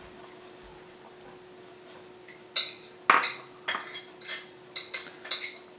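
Quiet room tone for about two and a half seconds, then a metal spoon clinking against a small glass measuring cup, about twice a second, as food colouring is stirred into water.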